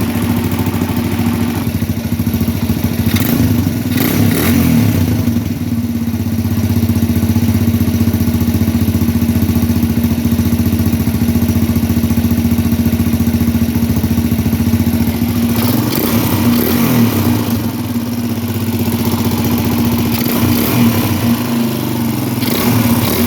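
Kawasaki KLX dirt bike's single-cylinder four-stroke engine idling steadily. The throttle is blipped a few times: about four seconds in, around sixteen seconds in, and near the end. The head bolts have just been re-torqued over a suspected leaking head gasket.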